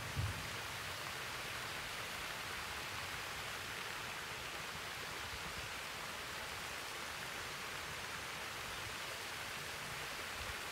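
Steady splashing hiss of a pond fountain, even throughout, with one brief low thump just after the start.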